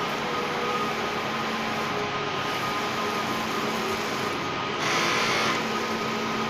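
Large-format flex banner inkjet printer running as it prints: a steady mechanical whir of its motors and fans, with the print-head carriage moving back and forth. A brief, louder hiss comes about five seconds in.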